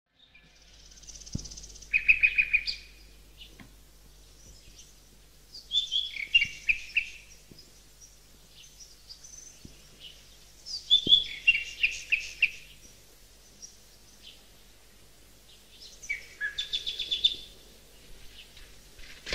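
A songbird singing four short phrases of about two seconds each, several seconds apart.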